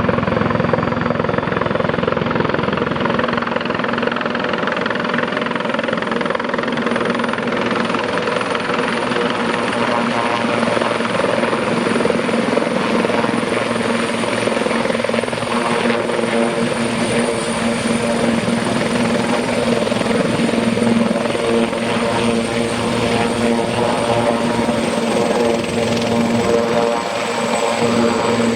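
Sikorsky S-76B helicopter's twin turboshaft engines and rotors running loud and steady, with a high turbine whine that drops slightly in pitch near the end.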